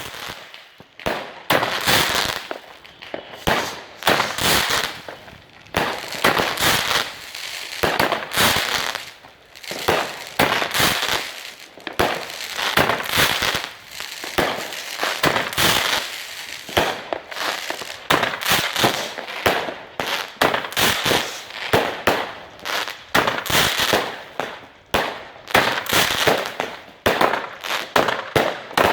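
WECO consumer fireworks going off: a dense, irregular string of sharp bangs and crackles, several a second.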